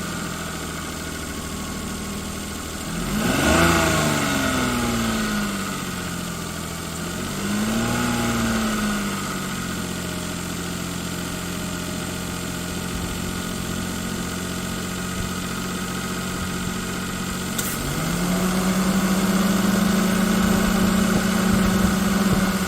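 Vehicle engine idling, blipped up and back down about three seconds in and again more gently around eight seconds, then raised near the end and held at a slightly faster steady speed. It is run to show an abnormal engine noise.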